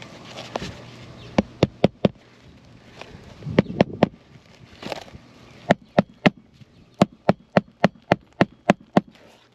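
Hammer driving roofing nails into asphalt shingles: a few short groups of sharp blows, then a steady run of about a dozen strikes, roughly three a second.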